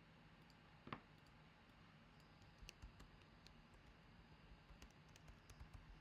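Faint computer keyboard typing: one sharper click about a second in, then a run of light, irregular key clicks through the second half.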